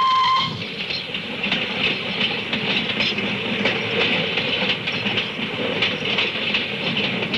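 A locomotive whistle sounds and cuts off about half a second in. Then a loaded ore train runs along the track, its wheels clacking over the rail joints in an uneven rhythm.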